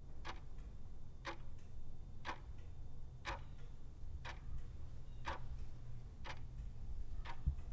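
Clock ticking about once a second, eight ticks in all, over a low steady hum.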